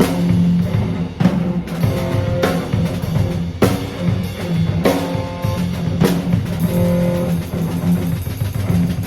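Rock trio playing live: drum kit with bass drum, snare and crash cymbal hits, electric bass and electric guitar.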